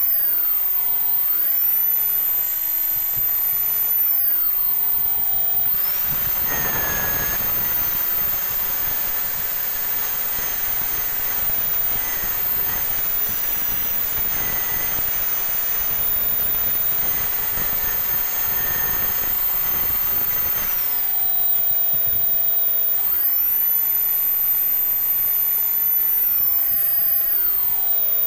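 Hand-held electric power tool motor running continuously, its whine dipping and recovering in pitch several times as it is loaded. Through the middle stretch it holds a steadier pitch under a rougher, denser grinding noise.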